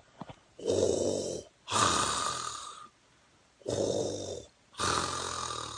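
A man's Darth Vader mask-breathing impression: two slow in-and-out breath cycles, four long breaths in all.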